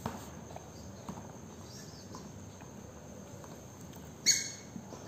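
A puppy's rubber squeaky toy gives one short, sharp, high squeak about four seconds in as the puppy bites down on it, and a second brief squeak at the very end. Faint ticks of the toy and paws on the tile floor come before.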